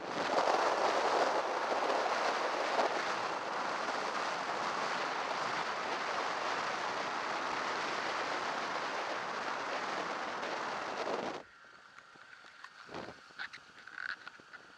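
Wind rushing over a helmet-mounted action camera's microphone while riding a motorcycle: a steady, loud hiss with no engine note, which starts abruptly and cuts off suddenly about eleven seconds in, leaving quiet with a few faint clicks.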